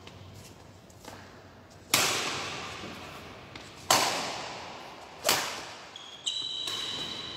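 Badminton rackets striking a shuttlecock back and forth in a rally: three loud, sharp hits about two seconds apart, each ringing on in the echo of a large hall, then a softer hit near the end.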